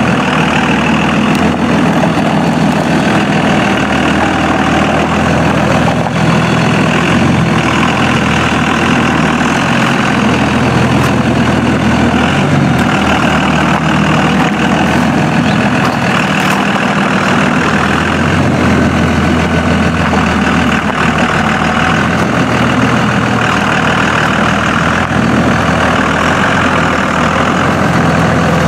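Dodge Ram wheel-lift tow truck's engine running steadily as the truck moves slowly.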